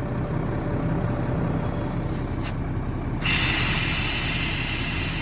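Volvo semi-truck engine idling steadily. About three seconds in, a loud hiss of compressed air starts and keeps going, as the newly hooked-up air seat fills from the truck's air system.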